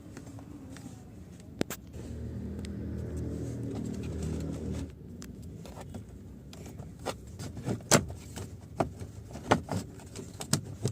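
Mahindra XUV300's engine running, then switched off, cutting out abruptly about five seconds in. A run of sharp clicks and knocks follows: plastic steering-column trim and tools being handled.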